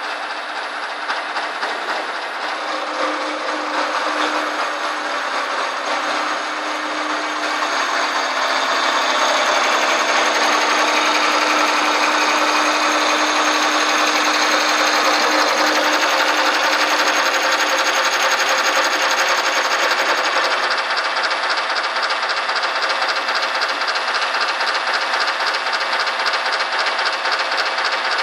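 CNC vertical machining centre running, its right-angle milling head spinning a cutter at a workpiece clamped in a vise: a loud, continuous machining whirr with a steady hum. About two-thirds of the way in the hum drops away and the cutting turns into a fast, even rasping chatter.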